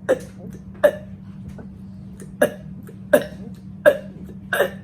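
A woman burping on purpose in quick succession, six short, sharp burps less than a second apart, forced out one after another against the clock.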